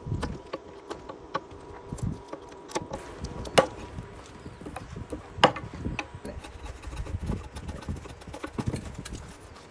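Irregular knocks and taps of hand woodworking on timber, with two sharp, louder cracks about three and a half and five and a half seconds in.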